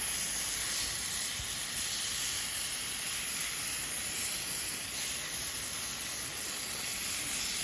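Sliced beef tongue sizzling steadily on a thin iron griddle over a wood fire, an even high hiss of meat frying on hot iron.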